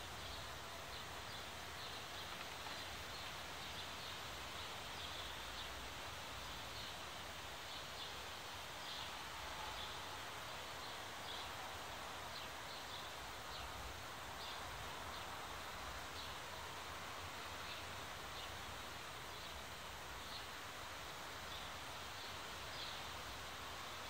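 Outdoor ambience: birds chirping in short, frequent calls over a steady background hiss.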